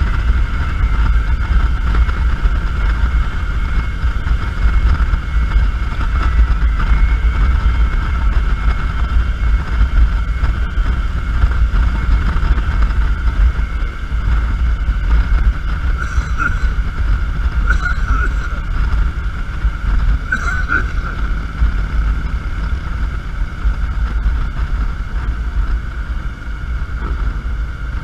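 Motorcycle riding at speed: heavy wind buffeting on the microphone over the steady drone of the bike, with three short, higher-pitched sounds about two-thirds of the way through.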